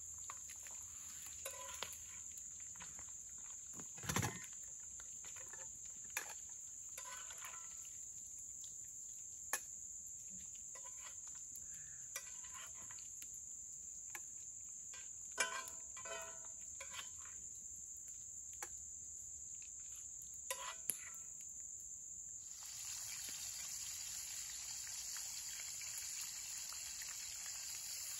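Steady high insect drone with scattered clicks and clinks of cooking gear being handled. About three-quarters of the way through, a steady sizzling hiss starts as a frying pan heats over the campfire.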